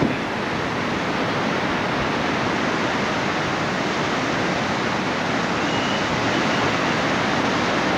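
A fast mountain river rushing over rocky rapids: a steady, even rush of white water.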